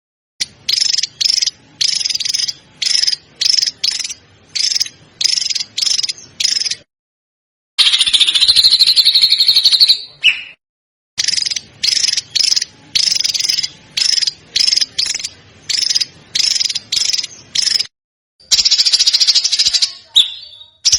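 A small songbird's high, buzzy, rapid-fire trills, repeated in short bursts about one and a half per second. Twice they give way to a longer trill of about two seconds. The passages are separated by sudden dead-silent gaps, as in an edited birdsong tutor track.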